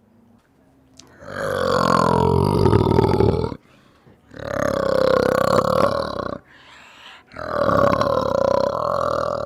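An animal calling: three long, drawn-out calls of two to three seconds each, with short pauses between them.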